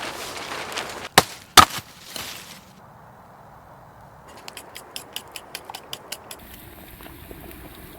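Two sharp chops of a hatchet or axe into wood, a split second apart, followed a few seconds later by a quick run of about a dozen light, evenly spaced clicks.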